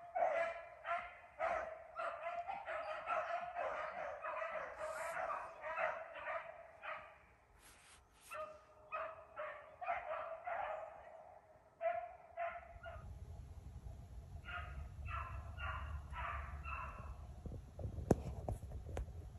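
Beagles baying on a rabbit's track, a rapid run of barks that thins out, pauses briefly and resumes in shorter bursts. A low rumble comes in about two-thirds of the way through, under the last scattered barks.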